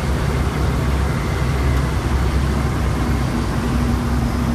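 Steady drone of the engines and rushing air inside an airliner's cockpit on final approach, with a faint steady hum joining about three seconds in.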